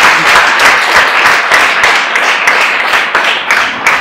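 Audience applauding, a loud, dense round of clapping that thins to scattered separate claps near the end.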